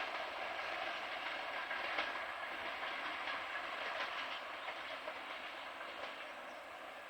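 A passing express train's coach wheels running and clattering over the rail joints, a steady rumble with occasional clicks that slowly fades as the train moves away.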